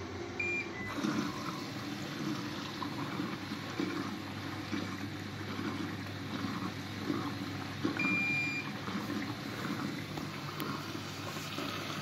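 Bosch Serie 4 washing machine running mid-cycle, water sloshing in the drum over a steady motor hum. A short beep comes under a second in and a longer beep about eight seconds in: the machine's signal as the child lock is switched by holding two buttons.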